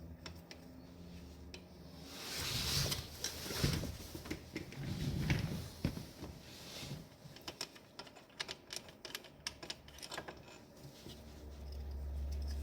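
Hand tools working the front brake caliper bolts of a motorcycle: rustling and handling noise, then a run of quick, light metallic clicks from about halfway through.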